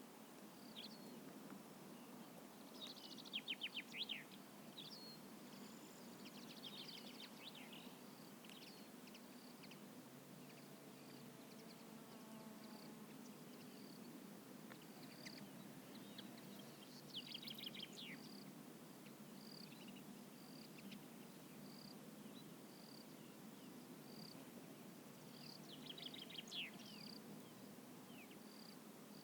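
Evening countryside ambience: an insect, likely a cricket, chirping steadily at about one high chirp a second. A bird sings short rapid trills four times over it, the loudest about three seconds in, above a faint low background hum.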